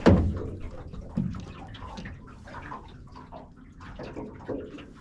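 Water splashing and sloshing in irregular bursts, with a sharp knock right at the start.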